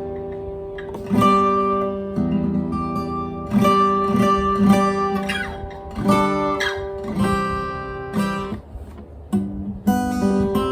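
Cort L710F acoustic guitar played unaccompanied: chords struck about every second or so and left to ring, with a few sliding notes.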